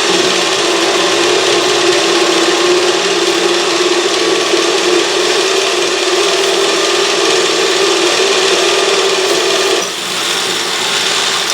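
Autobox 8x16 mini lathe running steadily as its cutting tool turns down the spinning workpiece, a constant hum with a hiss of cutting over it. The sound dips briefly about ten seconds in.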